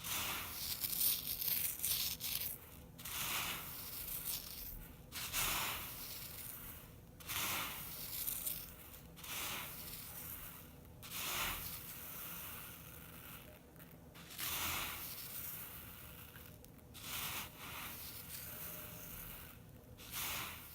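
Sand and gravel handled close to the microphone: repeated gritty hissing swells of a second or two, with short pauses between them.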